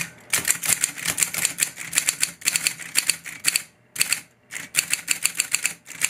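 Electric Olympia Reporter typewriter being typed on steadily, a quick run of type-bar strikes with two brief breaks about two-thirds of the way through. It is a test run after the escapement's second trip spring was tightened to cure intermittent piling-up of letters.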